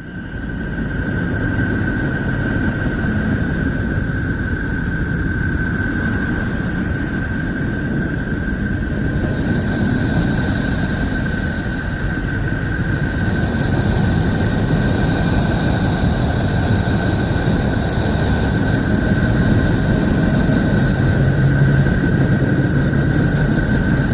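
Steady low rumbling drone presented as a planet's sound, with a constant high whistling tone over it and a second, higher tone joining about ten seconds in. It fades in at the start.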